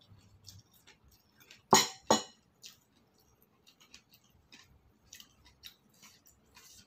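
A person eating by hand with small chewing and mouth clicks, and two sharp clacks of china dishes, a plate being set down among the bowls, about two seconds in.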